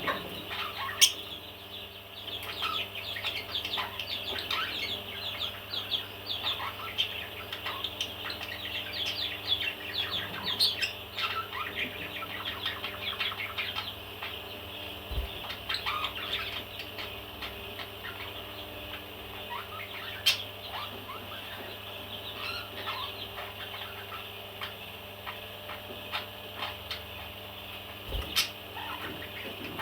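Parrots chirping and chattering in a steady stream of short, rapid calls, with a few sharp clicks: one a second in, one about two-thirds through and one near the end.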